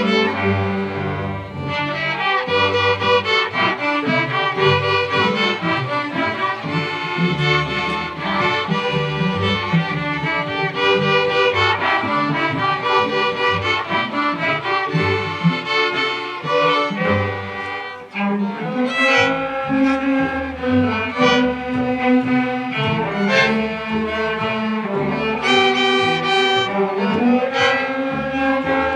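A school string orchestra of violins, cellos and double basses playing a piece together, with a short drop in level about eighteen seconds in before the playing resumes.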